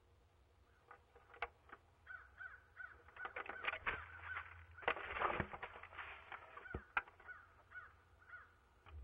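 A group of crows cawing over and over, many harsh calls overlapping and thickest in the middle: mobbing calls raised at a barred owl.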